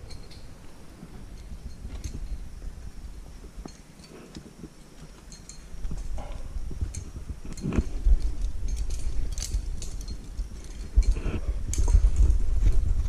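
Climbing hardware on a lead climber's harness, carabiners and quickdraws, clinking in scattered light metallic clinks as the climber moves. A low rumble under it grows louder about halfway through.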